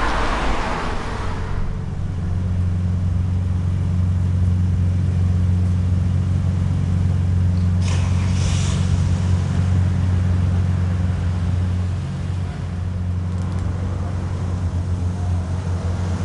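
Steady low rumble of city traffic at night, with a car passing on the wet road at the start and a brief hiss about eight seconds in.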